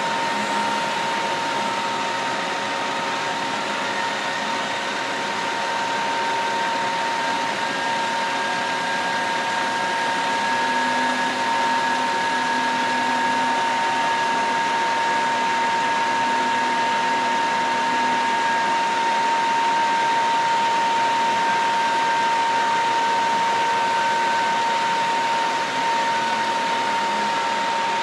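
Steady drone of idling heavy utility trucks and a crane truck, with a constant high-pitched whine and a fainter wavering tone above it.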